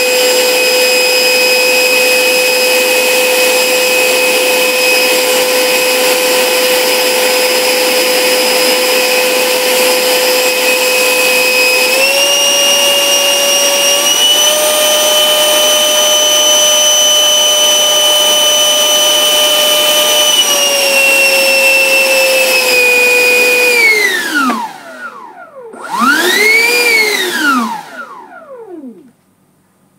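90mm HET 9305-700 electric ducted fan, driven by a Turnigy XK4074 1400KV motor on 8S, running at high throttle with a steady whine that steps up in pitch about a third of the way in and eases back down later. Near the end the throttle is cut and the whine falls in pitch, rises once in a short throttle blip, then spools down to a stop.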